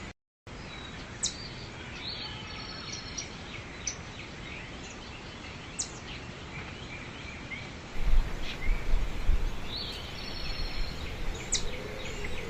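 Outdoor ambience: birds chirping in short calls and quick rising sweeps over a steady background hiss, with a low rumble coming in about eight seconds in.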